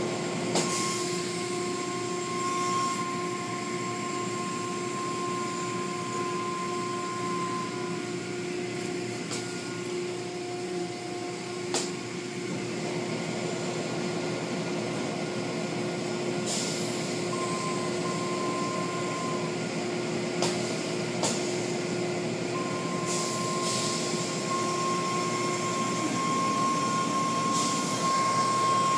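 Car wash machinery running: a steady noisy drone with a constant hum, a higher whine that cuts in and out, and a few sharp clicks.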